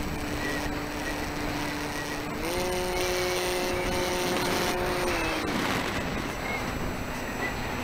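FPV model aircraft's motor and propeller humming over rushing wind on the onboard camera's microphone. The pitch steps up about two and a half seconds in as the throttle opens and drops back down about two seconds before the end.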